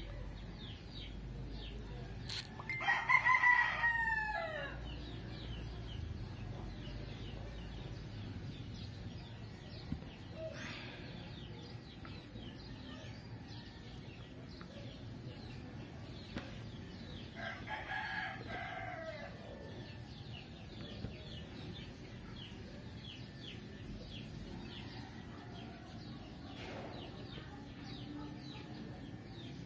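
A rooster crowing twice in the background, loudly about three seconds in and more faintly about eighteen seconds in, each crow dropping in pitch at its end. A steady low hum and faint chirping ticks run underneath.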